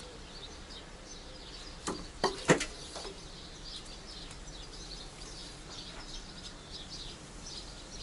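Small birds chirping in the background, with a few sharp knocks about two to two and a half seconds in.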